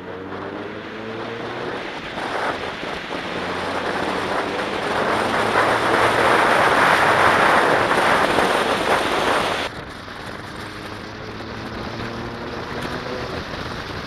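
Wind buffeting the microphone of a Mazda MX-5 convertible on the move, building to a loud rush and cutting off suddenly about ten seconds in. The car's four-cylinder engine runs underneath, rising in pitch as it accelerates at the start and again near the end.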